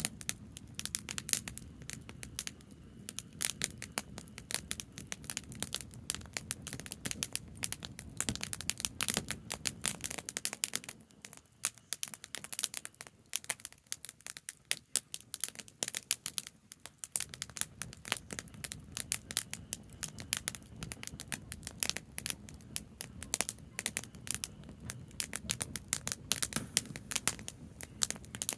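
Campfire of burning branches crackling and popping, with dense, irregular sharp pops throughout, over a low background rumble that fades out for several seconds midway.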